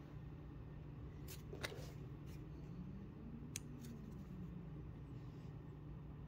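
Faint handling noises: a few light clicks and a brief scrape between about one and four seconds in as a small plastic threadlocker bottle and small metal parts are handled on the bench, over a steady low hum.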